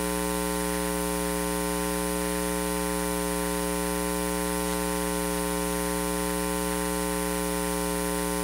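Steady electrical mains hum and buzz in the audio feed, a low drone with a constant hiss, unchanging throughout.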